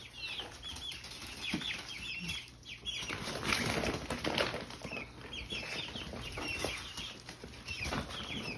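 Four-week-old chicks peeping repeatedly in short, high chirps. About three seconds in there is a louder stretch of rustling, with wing flapping and scratching among the feed.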